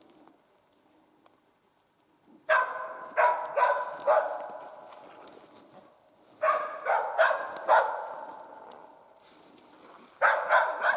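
Hunting laika barking in three bouts of quick, sharp barks with a short echo after each. It is baying at a small animal it has found, a marten.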